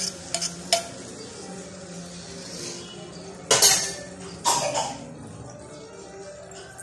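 Kitchen clatter of metal cookware and utensils: a few light clinks in the first second, then two louder clanks about three and a half and four and a half seconds in.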